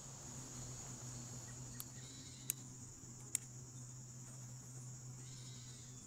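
A steady high insect trill, like an evening chorus of crickets, with a low steady hum beneath it and two sharp clicks near the middle.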